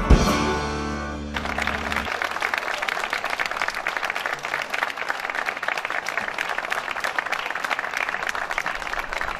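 A small orchestra of strings and drums ends a piece with a drum hit and a held final chord that dies away within the first two seconds. Then a crowd applauds steadily.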